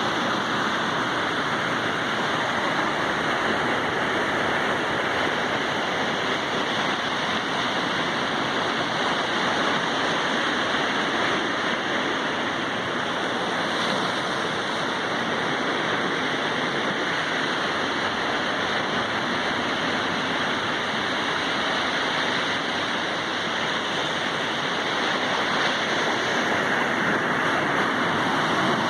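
Sea surf: waves breaking in a steady, unbroken rush of water noise.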